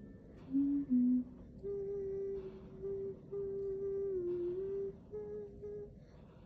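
Someone humming a slow tune in long held notes, with a small dip in pitch partway through.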